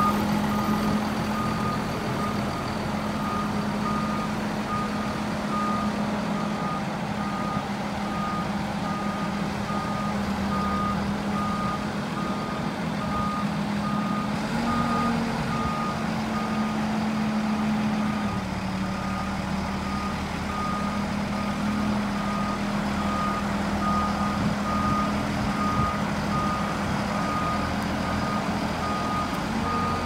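Backup alarm on a Roadtec RP-190 asphalt paver beeping at an even pace over the steady running of its Cat C7 diesel engine. The engine note rises briefly about halfway through, then settles back.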